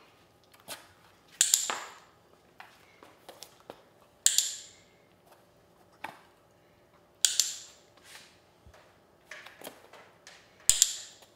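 Dog-training clicker clicking four times, about three seconds apart, marking the puppy's steps into the box during shaping. Fainter taps and scuffs of the puppy's paws in the cardboard box come between the clicks.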